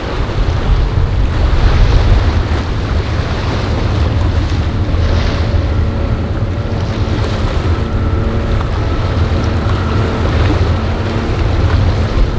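Wind buffeting the microphone over surf and boat engines at a rough inlet, with a faint steady hum rising for several seconds in the middle.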